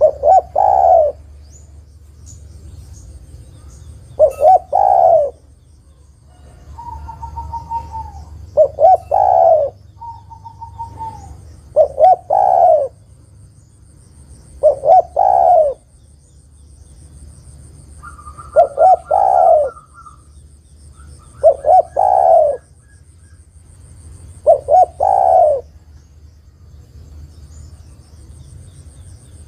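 Spotted dove cooing: its phrase of a couple of short notes running into a longer 'krrooo', repeated eight times at an even pace of about one every three to four seconds. The uploader presents it as a female calling to a male. Between phrases a thin held whistle-like note sounds three times.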